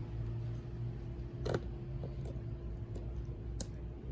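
Steady low mechanical hum in a small room, with two sharp small clicks of metal tools against phone parts, about a second and a half in and again near the end.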